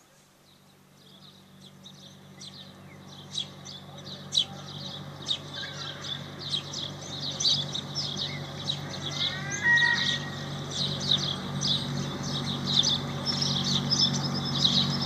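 Many small birds chirping densely over a low steady hum, fading in gradually from near silence, with a few gliding whistled notes about ten seconds in.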